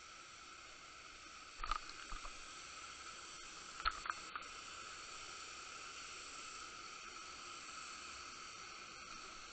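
Underwater camera sound: a steady hiss with a faint steady whine, broken by two short clusters of sharp clicks and knocks about two and four seconds in, at the moments a summer flounder attacks a white bucktail jig on the sand.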